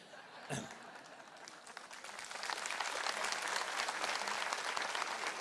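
Audience applauding: the clapping starts faint, swells over the first two seconds or so, and then holds steady.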